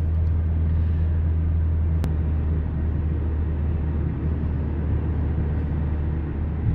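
Car cabin noise while driving: a steady low engine and road drone with tyre hiss. A single sharp click about two seconds in.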